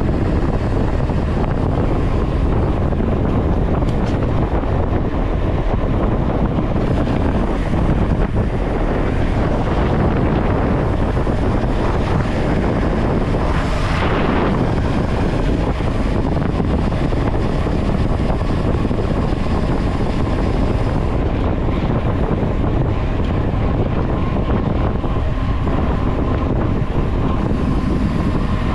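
Steady road and wind noise from a vehicle travelling along a highway, with wind buffeting the microphone; the hiss swells briefly about halfway through.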